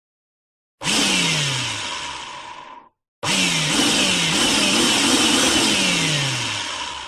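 Power drill running in two bursts, a short one and then a longer one, its motor pitch repeatedly dropping as the bit bites and loads it.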